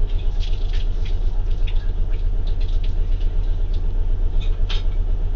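A loud, steady low hum, with scattered faint clicks and crackles over it.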